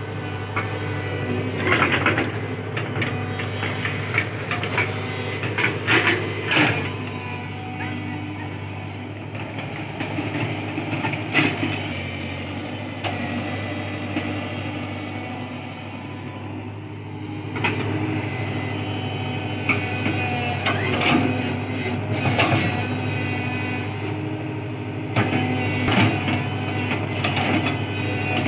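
Tata Hitachi crawler excavator's diesel engine running steadily under working load, with irregular knocks and clanks as the bucket digs and dumps soil.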